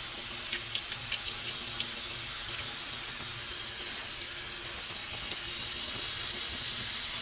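Coolant pouring in a steady stream from a disconnected heater-hose fitting and splashing onto a concrete floor, with a few small ticks of drips in the first couple of seconds.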